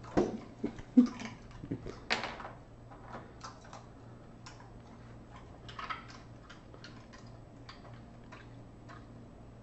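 A husky's claws clicking and tapping on a hard kitchen floor as it moves about, with a cluster of louder knocks and a short scrape in the first couple of seconds, then only scattered ticks. A low steady hum runs underneath.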